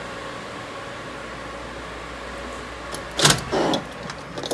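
Steady hum of a building interior, then about three seconds in the loud clack of a glass exit door's push bar unlatching and the door swinging open, followed by a few small clicks as the hum falls away.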